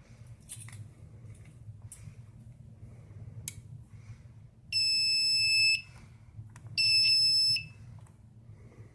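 Electronic fire alarm sounder on a Fire-Lite MS-2 fire alarm control panel system giving two loud, steady high-pitched beeps, each about a second long, about a second apart. A few faint clicks come first.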